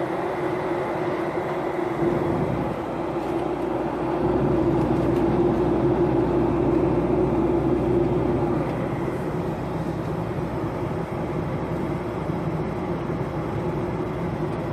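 Airliner cabin noise in flight: a steady engine and airflow rush with a constant hum, growing louder about four seconds in and easing back a few seconds later.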